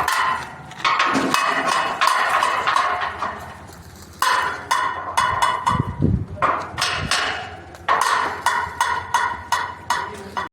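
Hammer blows on steel, struck in quick runs of several strikes with short pauses between, each strike ringing metallically.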